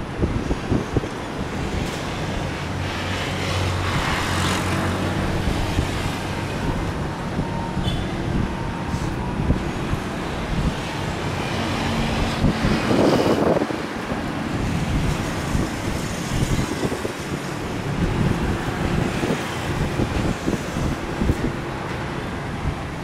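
Steady roadside traffic noise, with vehicles passing close by about four and thirteen seconds in.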